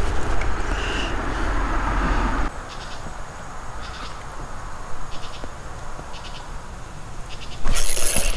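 Spinning reel cranked during a swimbait retrieve, with faint light ticks from the reel over steady handling noise. Near the end comes a sudden loud rush of noise as the rod is jerked at a fish's strike.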